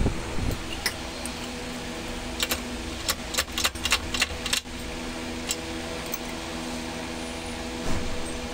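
Steady hum of workshop machinery, with a quick run of sharp metallic clicks and clinks in the middle.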